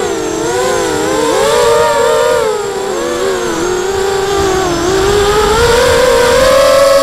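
FPV racing quadcopter's electric motors and propellers whining, heard from the onboard camera, several pitches rising and falling together with the throttle. The pitch dips a little past the middle and climbs again near the end.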